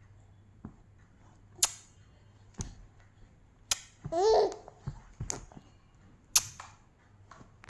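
A baby's short, high-pitched vocal sound just over four seconds in, among five sharp clicks or pops that come roughly a second apart.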